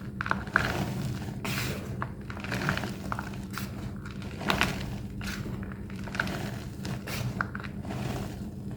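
Thick plain white homemade gym chalk block being crushed, crunching and crumbling in irregular short bursts with brief squeaks.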